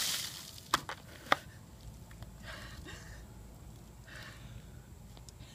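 The last of a bucket of ice water splashing down over a person onto grass, then two sharp clacks about a second in, followed by breathy gasps and panting from the cold.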